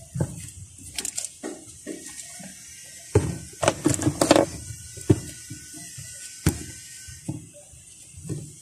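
Plastic packaging of modelling clay being handled and torn open by hand: irregular crinkles and clicks, with a busier patch of crinkling about three to four seconds in and a sharp click near the middle.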